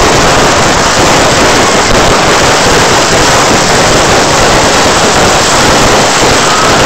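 Fireworks going off in a dense, continuous barrage that overloads the phone's microphone into a steady, loud roar with no separate bangs.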